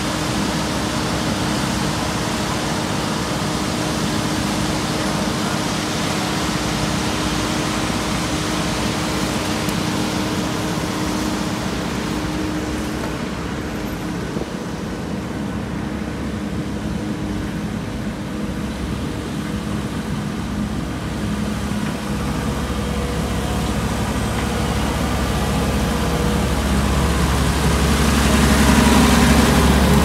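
Diesel engines of asphalt paving machinery running steadily, with a few steady humming tones. The sound dips slightly about halfway through, then a deep low rumble swells over the last third as a steel-drum road roller works close by.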